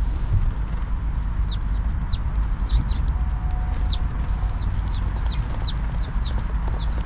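A flock of house sparrows chirping: many short, quick, falling chirps from about a second and a half in, over a steady low rumble.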